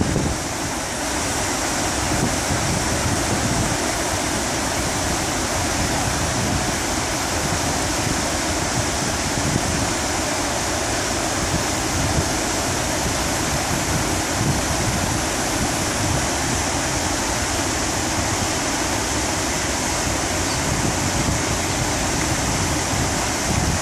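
River water rushing steadily over rapids, an even hiss.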